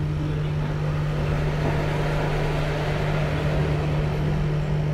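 Hot-air rework station blowing steadily, a constant fan hiss over a steady hum, as it heats solder to reflow a phone's new charging connector.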